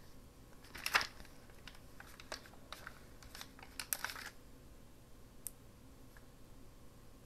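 Light clicks, taps and rustling of paper and stickers being handled on a craft table. The sounds are loudest about a second in and again around four seconds in, with one last small tick a little later.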